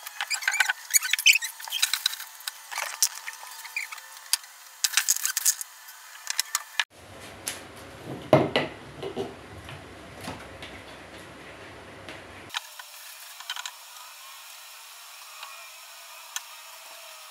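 Rapid small clicks, taps and knocks of work on a wooden desk, the loudest knock about eight seconds in, then a faint steady hiss for the last few seconds.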